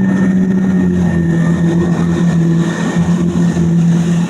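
Motorboat engine running steadily at speed, a constant low drone with a steady higher whine above it.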